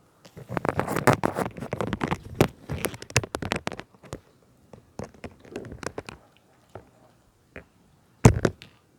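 Dog eating close to the microphone: a dense run of chewing and mouth clicks for the first few seconds, then scattered clicks, with one louder click near the end.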